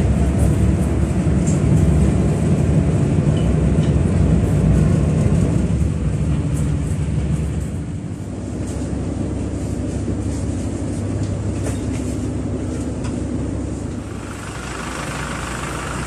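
Steady low drone of a fast passenger ferry's engines heard inside the cabin. It drops in level about halfway through. Near the end it gives way to a lighter, hissier outdoor noise.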